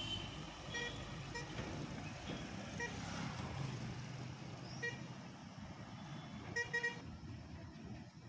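Road traffic with heavy trucks and motorcycles passing, and a series of short vehicle-horn toots over the steady rumble. The loudest are two quick toots near the end.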